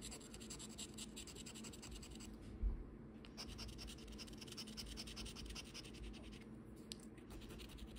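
Scratching the coating off a Loteria scratch-off lottery ticket in quick, faint repeated strokes, pausing briefly twice, about three seconds in and near seven seconds. A soft bump comes at the first pause.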